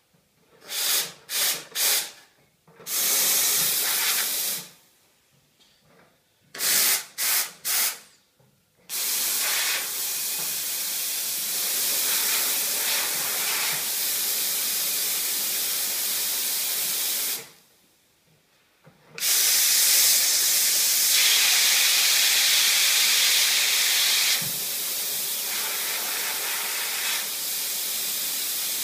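Steam wand of a La Scala Carmen commercial espresso machine venting steam with a hiss: three short puffs, a longer blast, three more short puffs, then a long steady blast. It stops for about two seconds and then opens again steadily until the end.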